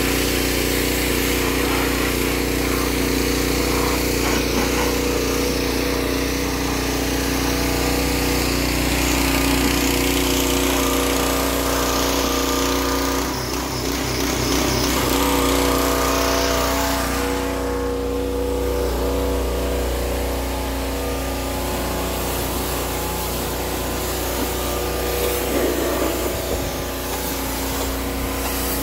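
Pressure washer running steadily, a constant machine hum under the hiss of its wand spraying water onto a vehicle's body.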